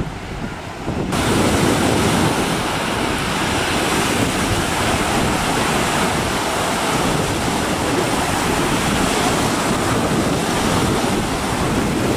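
Waves washing onto a sandy shore, mixed with wind buffeting the microphone: a steady loud rush that jumps up abruptly about a second in.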